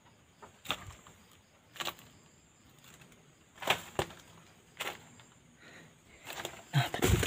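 Footsteps on rubble and loose debris: a few separate crunching steps about a second apart, then louder, busier scuffling near the end.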